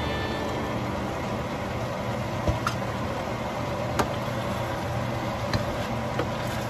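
Vegetables sizzling steadily in a hot stainless steel wok, with a few sharp clicks of a wooden spoon against the pan as they are stirred.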